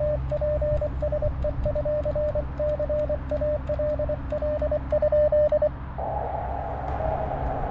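Morse code (CW) from an Elecraft KX2 transceiver's speaker on the 40-metre band: a clean tone keyed in dots and dashes, which is the transmit sidetone. About six seconds in it switches to receive, giving a band of hiss with a fainter Morse signal coming through.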